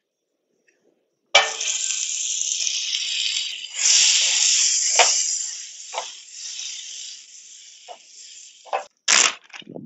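Butter sizzling in a hot frying pan on a gas camp stove as baby portobello mushrooms are added. The sizzle starts suddenly about a second in, swells again a couple of seconds later, then slowly dies down, with a few soft knocks in the pan.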